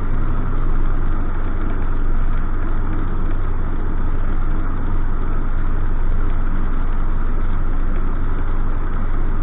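Cessna 152's four-cylinder Lycoming engine and propeller running steadily at low power, heard from inside the cockpit as an even, deep hum.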